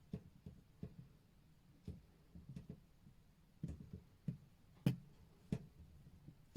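Light, irregular taps and clicks of small objects being handled on a hard surface, with one sharper click about five seconds in.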